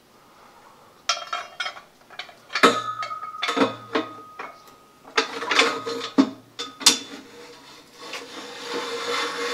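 Cast metal drill press head being fitted onto its steel column: a run of sharp metal knocks and clanks, some left ringing, starting about a second in. Near the end there is a steadier rubbing and scraping of metal on metal.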